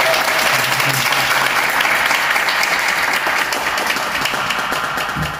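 Audience applauding, a dense patter of many hands clapping that eases slightly near the end.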